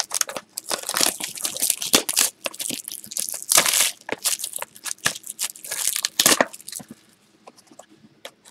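Clear plastic shrink-wrap crinkling and tearing as it is stripped off a sealed box of trading cards. The dense crackling dies down about seven seconds in.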